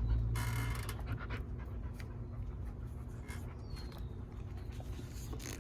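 A dog panting, with a few light clicks scattered through it.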